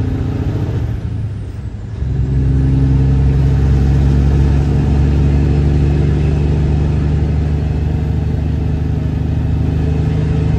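Semi-truck diesel engine heard from inside the cab, pulling the truck up to highway speed. The engine sound dips briefly between about one and two seconds in, then comes back strong and steady.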